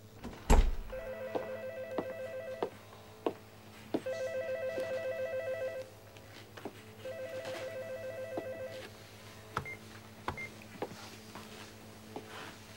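Telephone ringing three times with an electronic trilling ring, each ring about two seconds long with a pause between. A sharp knock about half a second in and a few fainter knocks come through, over a low steady hum.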